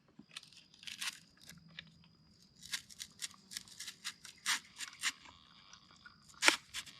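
Mountain-bike dropper seat post being pushed down into the frame while its new cable is pulled taut through it. It makes irregular short scraping and rubbing strokes, thickest in the middle, with a louder one near the end.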